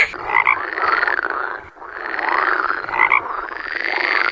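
Frogs croaking: repeated rattling, pulsed calls, each about a second long and rising then falling in pitch, following one after another, with short higher notes from another frog now and then.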